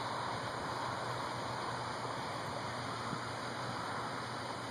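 Steady rushing noise with a low hum underneath, even in level, with no thunderclap or other distinct event.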